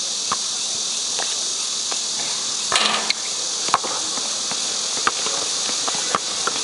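A steady, high insect chorus, with short sharp squeaks and knocks scattered through it from sneakers and a basketball on the court; the busiest cluster comes about three seconds in.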